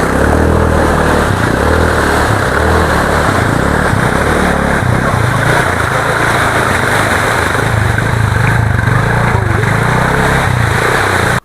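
A loud engine running steadily, with a hissing rush over it, cutting off abruptly at the end.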